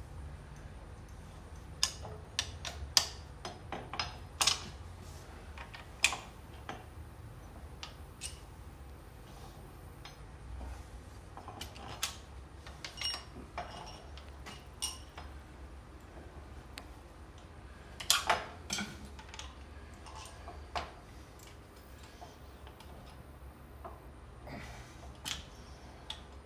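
Hand tools clicking and clinking on metal at irregular intervals as bolts are worked and tightened on a motorcycle's front end, with a low steady hum underneath.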